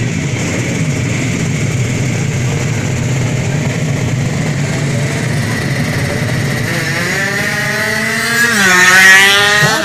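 Drag-race motorcycle launching off the start line and accelerating hard down the strip, its engine pitch climbing, dipping briefly at a gear change and climbing again. It is loudest about nine seconds in. Before the launch there is a steady drone of engine noise.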